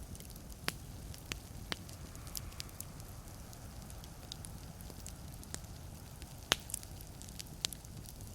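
Wood fire burning in a fireplace: a low steady hiss of flames with scattered sharp crackles and pops from the logs, the loudest pop about six and a half seconds in.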